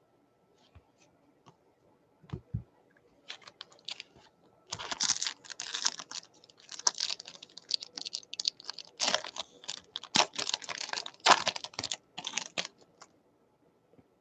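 A dog rummaging in garbage on the floor: irregular bursts of rustling and crackling, starting about five seconds in after a few soft knocks.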